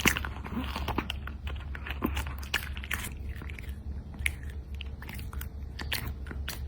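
A dog chewing strawberries: quick wet bites and crunches, coming thick and fast for the first few seconds, then more spaced out.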